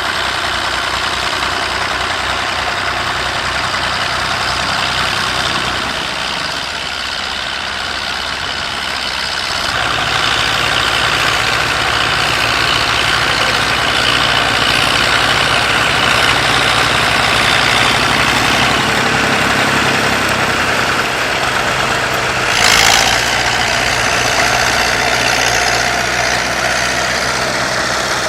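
Massey Ferguson 135 tractor engine running steadily while pulling a plough. Its note grows louder about a third of the way in, and there is a brief rush of noise about two-thirds of the way through.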